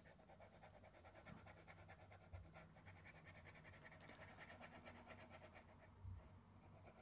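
Near silence: faint room tone with a low hum, and a soft low thump twice.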